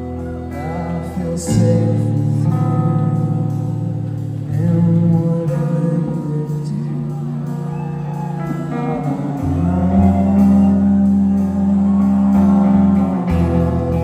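Live rock band playing loud through a PA: two electric guitars, bass guitar and drums, the bass moving between long held notes.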